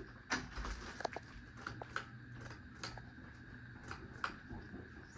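Hampton Bay Gazebo 2 Plus flush-mount ceiling fan running with a faint steady hum, with scattered light clicks and taps throughout.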